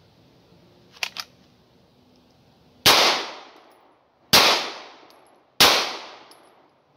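Two quick clicks about a second in as the HK P30L pistol is drawn from its Level 2 retention holster, then three pistol shots, evenly paced about a second and a half apart, each ringing out for about a second.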